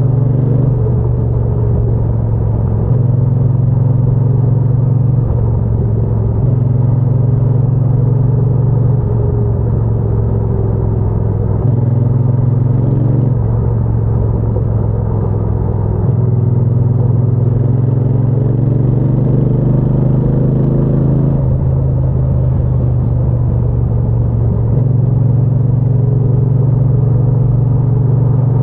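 Triumph Bonneville T120's parallel-twin engine and exhaust under way, its low note rising with the throttle and dropping at gear changes several times, with one long climb in pitch a little past the middle.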